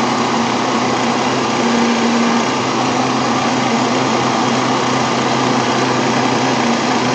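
Electric heat gun running steadily: an even rush of blown air over a low, constant motor hum.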